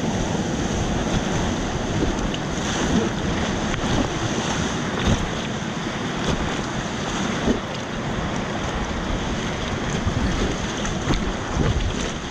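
Rushing whitewater rapids splashing around an inflatable kayak, with wind noise on the microphone and a few brief louder splashes.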